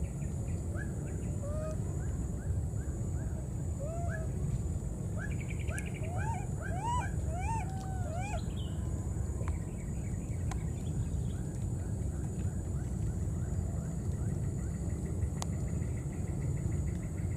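A series of short chirping animal calls, each rising and falling in pitch, coming quickly for several seconds and then thinning out, over a steady low rumble.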